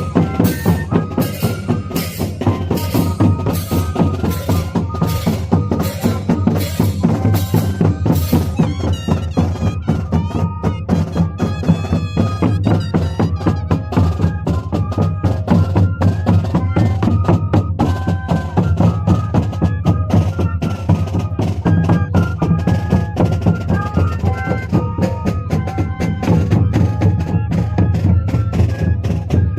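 A moseñada band playing: moseño cane flutes carry a stepwise melody over a low drone, with steady drumbeats.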